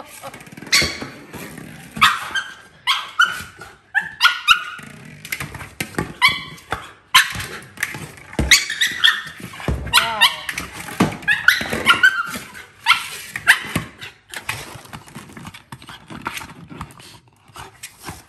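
Staffordshire Bull Terrier excitedly 'talking' to her ball: a run of short barks, yips and whines, some sliding in pitch, coming about once a second, with a few sharp knocks as she pushes the ball around.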